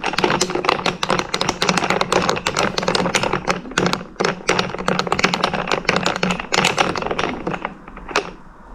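Metal spoon stirring coffee in a glass, clinking rapidly and continuously against the glass. The clinking stops near the end.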